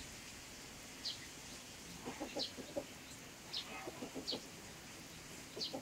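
Young chickens clucking softly: two brief runs of short low clucks, with short high chirps about once a second.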